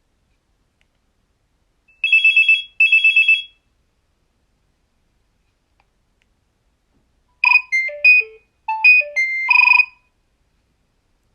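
Nokia 3100 mobile phone playing two short built-in tones through its speaker: first two quick bursts of rapid, high trilling beeps, then, after a pause of a few seconds, a short melody of about eight beeping notes jumping between pitches.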